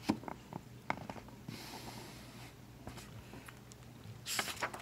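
Pages of a hardcover picture book being handled and turned: a few faint clicks, a soft paper rustle, and a short louder rustle near the end.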